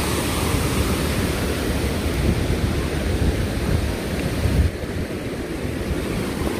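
Water rushing over a low river weir, a steady noisy wash, with wind buffeting the microphone as a low rumble. About three-quarters of the way through, the rush abruptly turns duller.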